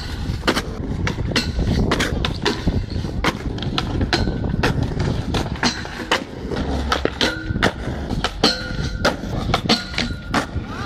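Skateboard wheels rolling on concrete, with many sharp clacks of the board popping, landing and striking a metal flat rail. Brief steady tones come while the board slides along the rail.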